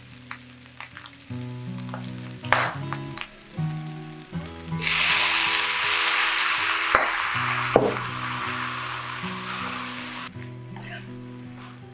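Stir-fry in a wok: a spatula scraping and clacking against the wok, then a third of the way in a loud sizzle starts as dark sauce hits the hot wok, hissing for about five seconds before cutting off suddenly.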